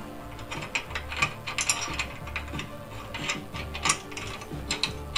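Irregular metallic clicks and clinks from a bull bar and its mounting bracket and bolts being shifted and lined up by hand at the tow-hook mount.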